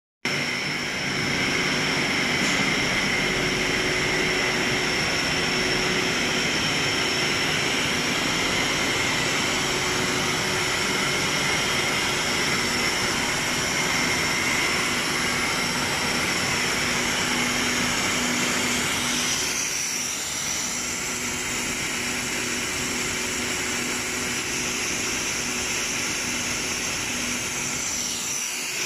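Steady running noise of a PVC pipe extrusion line, motors, pumps and fans together, with steady high whines over a broad hum. It eases slightly about two-thirds of the way through.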